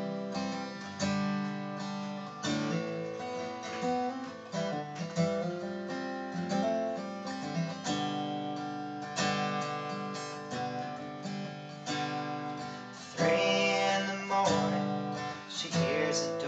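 Steel-string acoustic guitar playing a song's intro: picked and strummed chords with a steady pulse. A man's singing voice comes in about thirteen seconds in.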